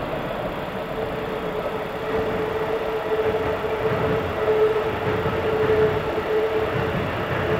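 Keikyu electric train running past on the track, its rumble swelling about two seconds in, with a steady high hum over it.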